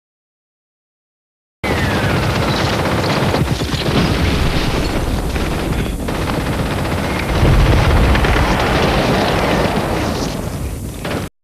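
Heavy, sustained gunfire: machine-gun bursts and shots packed close together, with a deep boom about seven and a half seconds in. It starts suddenly after a short silence and cuts off abruptly near the end.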